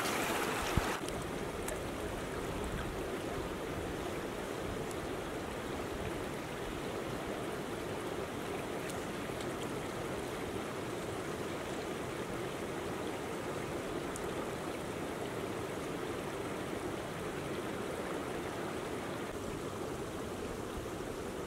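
Highland river flowing over rocks in shallows, a steady rush of water, with a single short knock about a second in.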